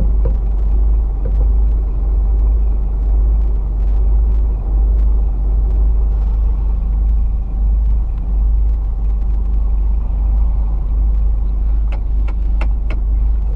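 Semi-truck engine idling, a steady deep rumble heard from inside the cab while the truck stands still in a queue. A few sharp clicks near the end.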